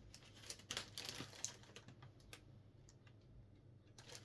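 Small plastic bags of diamond-painting drills being sorted through by hand: light scattered clicks and crinkles, thinning out after about two and a half seconds.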